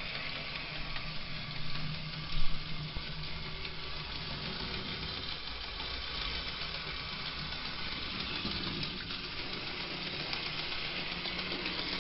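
Tyco Chattanooga 2-8-0 HO-scale model steam locomotive running on the track: a steady whir of its small electric motor and gears, running smoothly after a cleaning. A single louder click about two and a half seconds in.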